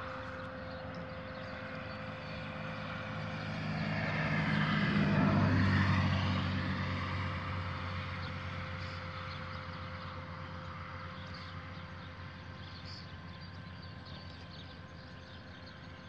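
Astro-Physics Mach2GTO mount's right-ascension motor whining steadily at one pitch as the mount slews. Over it a propeller airplane passes, swelling to its loudest about five or six seconds in, then slowly fading.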